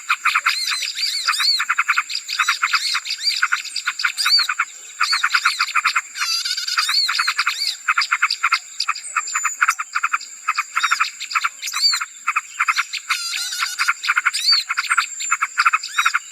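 Bird-lure recording of small birds calling in a dense, rapid chatter of short sharp notes with occasional brief whistles, meant to draw small birds in. A steady high-pitched tone runs behind it.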